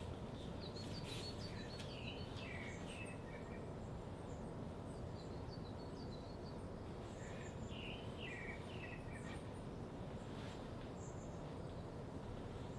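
Songbirds chirping in two short phrases, each a quick run of notes stepping down in pitch, the second a few seconds after the first, over a steady low background hiss.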